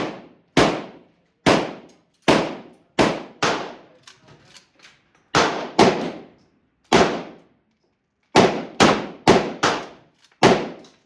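Gunshots at a shooting range: about fourteen shots fired at irregular intervals, some in quick pairs, each followed by a short echoing decay.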